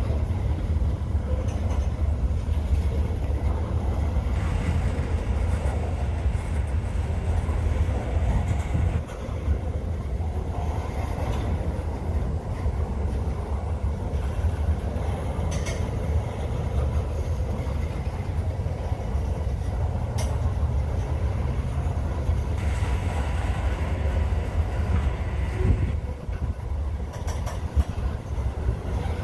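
Norfolk Southern freight train rolling past, a steady low rumble with a few faint clicks from the wheels and cars.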